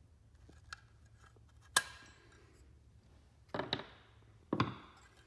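Sharp metal clicks and knocks from a snowmobile steering post assembly being handled as its retaining clip is worked off. There is one crisp click with a short ring, then a brief clatter, then a heavier knock near the end.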